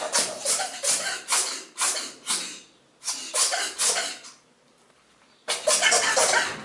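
A ferret sneezing over and over in quick, short bursts, about two a second, in three runs with brief pauses between them; the last run comes fast and close together.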